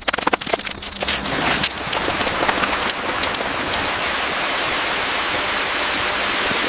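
A steady, rain-like hiss and patter, with scattered crackles and clicks in the first two seconds.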